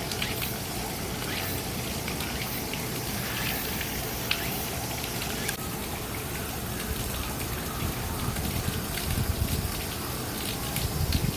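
Steady hiss of falling water, with scattered faint ticks and a few soft low bumps in the last couple of seconds.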